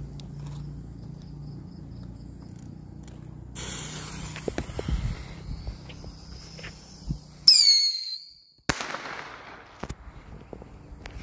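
Small ground fireworks going off: a hissing fizz starts about a third of the way in, then a short, loud whistle that falls slightly in pitch, followed moments later by a sharp bang with a crackling tail.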